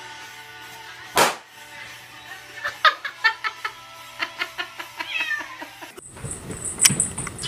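A rubber balloon pops once, sharply, about a second in. A cat then meows over light background music.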